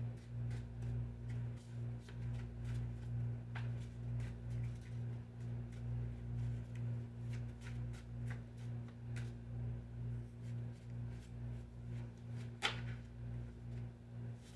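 A steady low hum that swells and fades about three times a second, with scattered faint clicks and one sharper click near the end.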